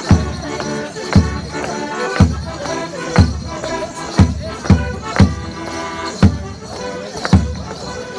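Folk band playing a morris dance tune, the melody carried over a heavy bass-drum beat about once a second, with a light jingling rattle on top.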